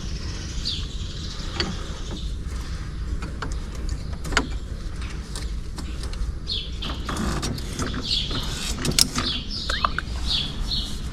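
Birds chirping in short high calls, more often in the second half, over a steady low rumble, with a few sharp clicks.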